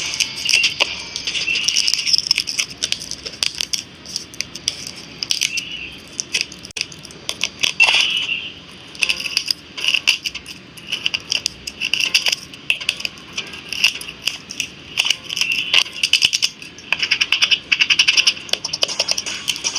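Rapid small clicks and clinks of tools working on a smartphone's hard parts.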